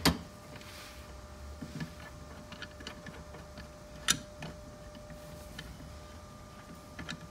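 Scattered light clicks and ticks of a bolt and spacer being fitted into a Jeep seat-mount bolt hole by hand, with a sharper click about four seconds in, over a faint steady hum.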